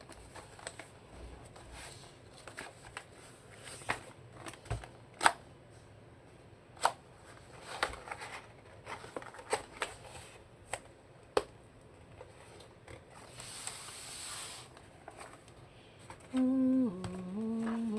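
Scattered single clicks and taps, irregularly spaced, from a low-profile mechanical keyboard with red linear switches being handled and pressed, with a short rustle a little past the middle. Near the end a voice hums a few notes.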